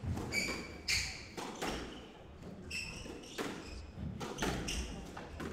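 Squash rally: a squash ball struck by rackets and hitting the walls in sharp knocks about a second apart, mixed with short high squeaks of players' shoes on the wooden court floor.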